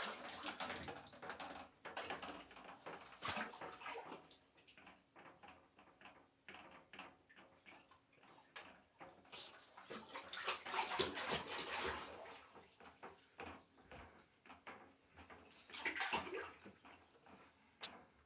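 Water splashing and sloshing in a bathtub in irregular bursts, with small knocks and clicks, and a sharp knock near the end.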